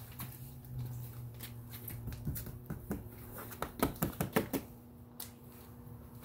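Handling noise: a low steady hum, then a quick irregular run of light clicks and taps about halfway through, as the hard plastic ship parts and the phone are handled.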